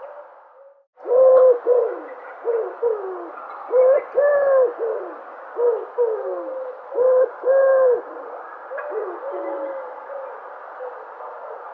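Dove cooing: after a brief silent break about a second in, a run of short calls, each swooping down in pitch, over a steady background hiss.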